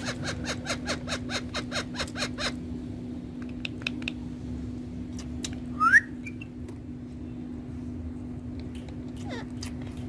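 Rose-ringed (ringneck) parakeets calling: a fast run of short chirps, about five a second, for the first two or three seconds, then one loud rising whistled call about six seconds in. A steady low hum runs underneath.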